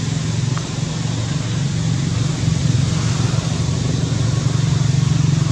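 An engine running steadily with a low, continuous hum, a little louder from about halfway through.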